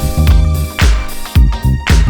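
Background music with a steady, strong beat and bass.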